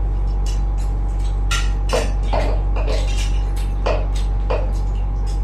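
Plates and cutlery clinking and knocking in scattered short strikes during eating, over a steady low hum.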